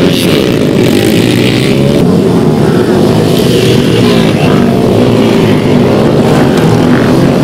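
Several dirt bike engines revving hard as the motorcycles accelerate through a turn on loose dirt, their pitch rising and falling.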